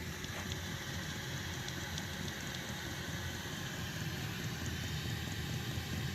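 8 kW diesel heater running steadily on a diesel and used-oil mix: an even rumble of the burner and blower, with a few faint ticks.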